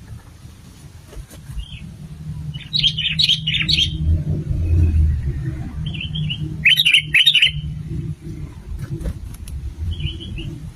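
Sooty-headed bulbul (kutilang) singing: two loud song phrases a few seconds apart, with shorter calls before, between and near the end. A steady low rumble lies underneath.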